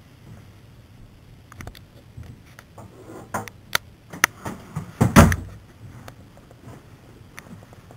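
A run of sharp knocks and clicks, building to a single heavy thump about five seconds in.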